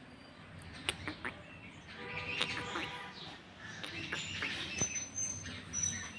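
Birds chirping and calling in the tree canopy in short bursts, with a few sharp clicks about a second in.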